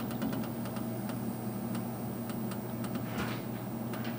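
Tormach PCNC 770 mill's table drive clicking in small, irregular ticks as the table is jogged a little at a time to bring the dial test indicator to zero, over the machine's steady hum.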